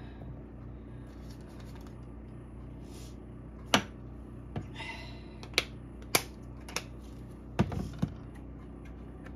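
A table knife clicking and scraping against a cutting board as cubed butter is pushed about: a handful of sharp, separate clicks starting about three and a half seconds in, then a cluster of knocks near the end as the hand reaches over to the spice jars. A low steady hum runs underneath.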